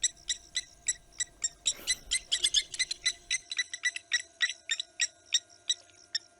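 Blacksmith lapwings giving their sharp, metallic 'tink' alarm calls, a fast, uneven run of clinks from several birds overlapping, set off by the serval's presence.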